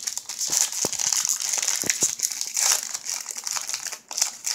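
Crinkling of a shiny foil baseball card pack wrapper (1992 Classic Draft Picks) as it is peeled open by hand and the cards are slid out, with many small crackles. It eases off about four seconds in.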